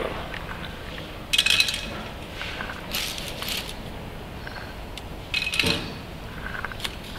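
A metal spoon scooping groundnuts from a plastic bag and tipping them into an aluminium foil dish on a balance, weighing out a sample for a moisture test. Three short bursts of rattling and clinking about two seconds apart, with a few faint ticks between them.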